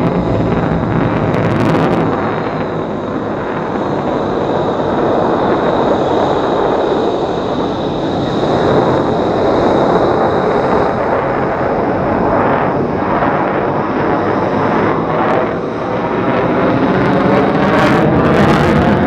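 Jet roar from a USAF F-35A Lightning II's single F135 afterburning turbofan as the fighter flies display maneuvers overhead. The loud, continuous roar swells and dips a little.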